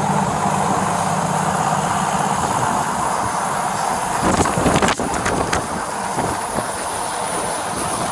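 Wind rushing over a body-worn camera's microphone, with a vehicle engine idling underneath that fades out about two and a half seconds in. From about four seconds in, irregular footsteps crunch through snow.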